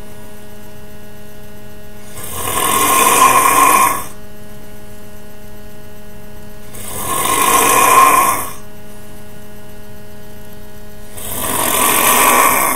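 A sleeping person snoring loudly. Three long snores come about four and a half seconds apart; each swells up over a second or so and then cuts off. A steady hum carries on between them.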